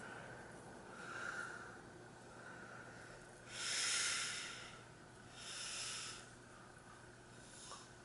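Crompton Greaves industrial ceiling fan coasting down after switch-off, faint over a low steady hum. The loudest sounds are two breathy hisses close to the microphone, about three and a half and five and a half seconds in.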